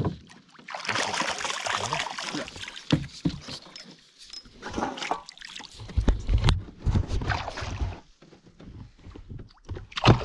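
Water splashing and knocks against the hull of a canoe, with several sharp knocks and bumps handled close to the microphone.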